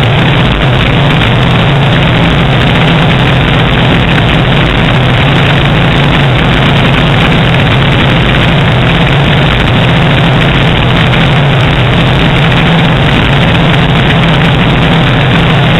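Single-engine light aircraft's engine and propeller droning steadily in cruise, heard from outside the cabin with a heavy rush of wind over the microphone.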